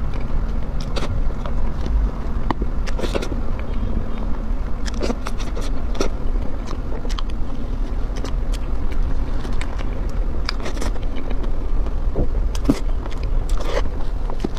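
Close-miked eating of soft mousse cake: wet mouth sounds and small clicks as she chews, and a spoon scraping the cake board, over a steady low rumble.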